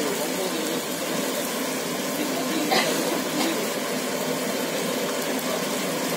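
Chicken 65 deep-frying in hot oil in a black iron kadai: a steady sizzle of bubbling oil.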